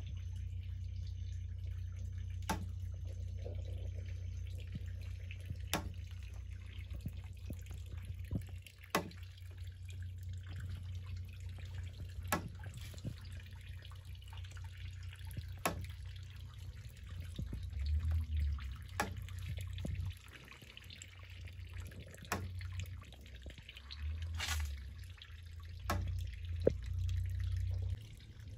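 Liquid dripping from a wooden cassava press as the grated cassava is squeezed, single drops falling about every three seconds. A low, uneven rumble runs underneath.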